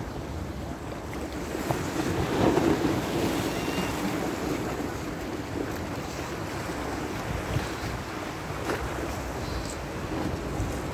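Choppy Black Sea surf washing against shoreline rocks, mixed with wind buffeting the microphone. It swells to its loudest about two seconds in.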